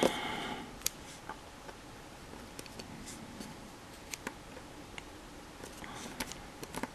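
Sparse faint clicks and taps of small plastic model-kit parts being handled and fitted with chopsticks.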